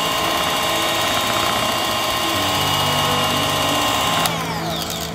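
Electric hand mixer running steadily with a high whine as its twin beaters whip heavy cream. Just over four seconds in it is switched off with a click, and the whine falls away as the motor spins down.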